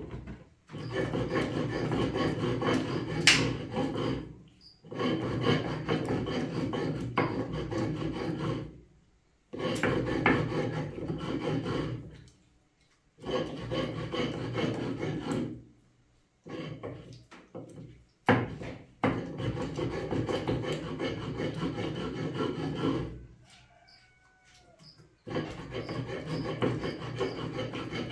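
Tomatoes and dried chile de árbol being ground by hand on a grinding stone: runs of quick, rhythmic rasping strokes that stop for a moment every few seconds and start again.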